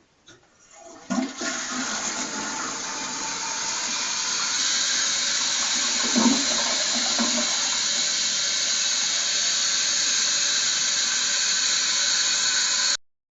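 Toilet flushing: a faint knock of the handle, then rushing, swirling water that runs steadily for about twelve seconds before cutting off sharply.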